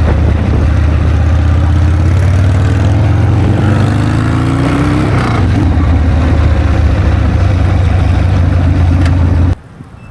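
Harley-Davidson V-twin motorcycle engine running loudly and steadily, its pitch rising briefly in the middle, then cutting off abruptly near the end.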